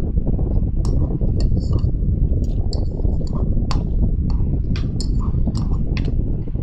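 Spoon and fork clinking and scraping against a ceramic bowl while eating, about a dozen irregular sharp clinks with a short ring. A steady low rumble runs underneath.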